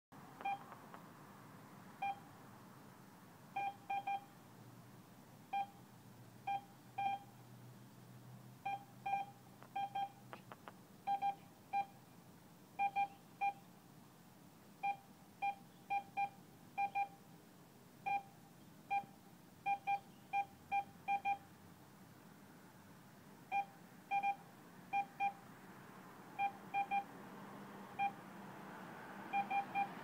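Automated teller machine beeping by itself: short, identical high beeps in irregular singles, pairs and triples, like Morse code.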